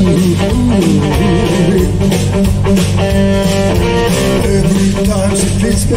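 A live blues band playing an instrumental passage between vocal lines: electric guitar over bass and drums.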